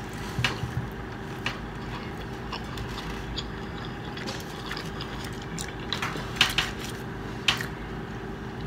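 Close-up chewing of a bite of meat lover's pizza: irregular small clicks and crackles of mouth and crust, over a steady low hum.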